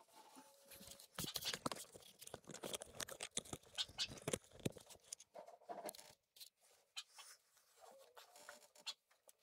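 Quick, irregular clicks, scrapes and rustles of hands and tools working around a tractor's transmission and hydraulic fittings. They are busiest through the first half and thin out after about six seconds.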